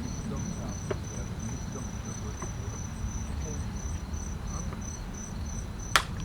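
Insects chirping in a steady high-pitched pulsing rhythm, about three pulses a second, over a low steady rumble. A single sharp crack sounds near the end.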